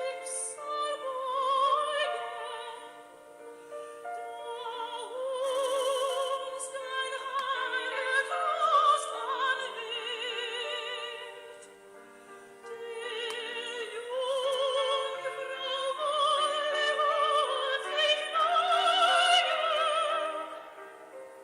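Classical music with operatic singing: long held notes with a wide vibrato, pausing briefly about twelve seconds in.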